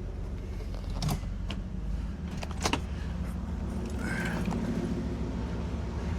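1976 Cadillac Eldorado's 500-cubic-inch V8 running low and steady as the car creeps up onto ramps, with a couple of sharp clicks and a brief creak about four seconds in.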